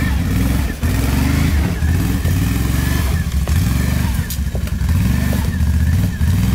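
Can-Am ATV engine running at low revs under load as the quad crawls over rocks, the throttle pulsing and easing off in short spurts, with a couple of short knocks about three and four seconds in.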